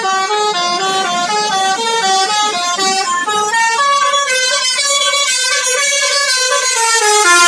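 An NPM bus's telolet musical air horn playing a melody: quick stepped notes at first, then longer held notes from about four seconds in.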